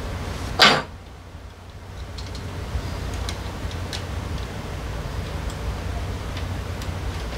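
A metal wrench set down with one sharp clank on the steel work platform about half a second in, followed by faint scattered ticks and clicks of hands and tools working at the rear wheel's axle and brake arm, over a steady low hum.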